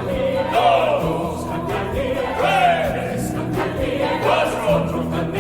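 A choir singing with instrumental accompaniment, sung lines wavering over held bass notes.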